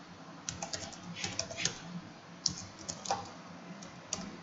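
Computer keyboard keys clicking as a short command is typed, about a dozen keystrokes in uneven bursts.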